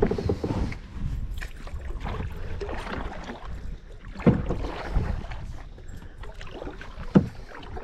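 Kayak being paddled: paddle strokes swishing and splashing in the water, with a few sharp knocks of the paddle or gear against the hull. A low wind rumble on the microphone runs under it.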